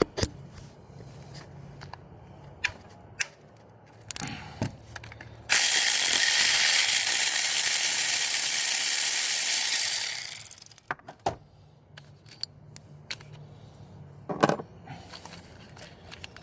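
Ratchet and socket work on a car's spark plug: scattered metallic clicks and knocks, with a loud continuous rasping noise lasting about five seconds in the middle.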